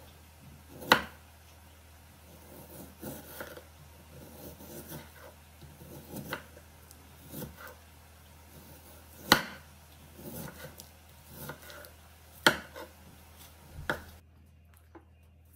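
Kitchen knife chopping thin slices of chicken doner on a wooden cutting board: soft slicing and scraping noises, with a few sharp knocks of the blade on the board.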